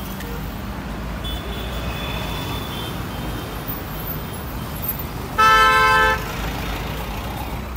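Road traffic running steadily, with a vehicle horn honking once, loud and a little under a second long, about five and a half seconds in; a fainter high tone sounds briefly earlier.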